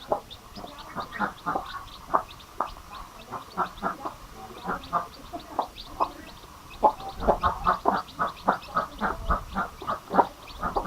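Newly hatched chicken chicks peeping, many short calls overlapping in quick succession, several a second.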